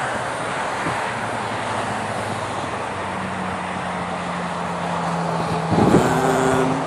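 Steady engine noise over a wash of outdoor traffic-like noise, with a steady low tone joining about halfway and a louder pitched engine sound coming in near the end.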